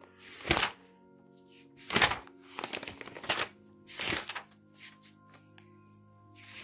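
Pages of a thick paper dictionary being turned, a series of short papery swishes and flaps about a second apart, over soft steady background music.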